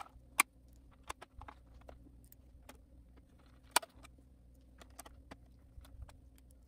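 Scattered clicks and ticks of a plastic transmission cover being set onto a plastic RC truck chassis and a hand screwdriver turning small screws into it, with two sharper clicks about half a second in and near four seconds.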